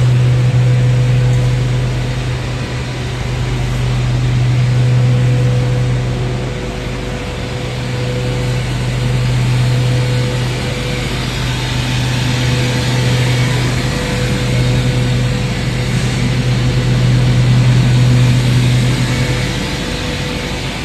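Industrial machinery running continuously: a steady low hum with a fainter higher tone over a broad rushing noise, swelling and easing slowly every few seconds.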